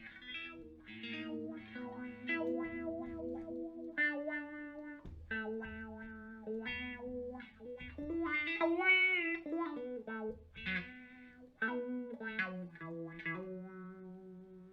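Electric guitar played through a Moen Jimi Nova univibe-style chorus/vibrato pedal: picked chords and single notes. One held note wavers in pitch a little past the middle.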